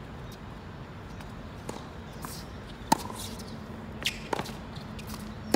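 A few sharp knocks, the loudest about halfway through and two more close together later, over steady background noise with a low hum.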